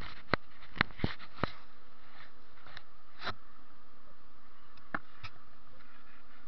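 Sharp clicks and knocks from the camera being handled and turned: several in the first second and a half, then single ones about three and five seconds in. Under them runs a steady electrical buzzing hum.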